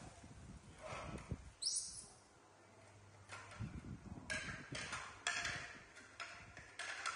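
Plates being set down and slid on a tiled floor, clattering several times in quick succession in the second half. About a second and a half in there is one short, high, rising squeak from a baby macaque.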